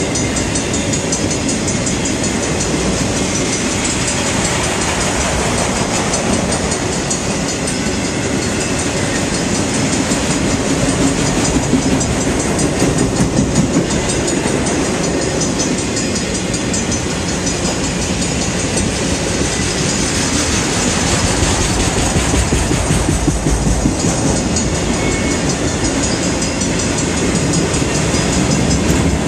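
Freight train's cars rolling steadily past, with wheels clicking over the rail joints and a continuous loud rumble and rattle.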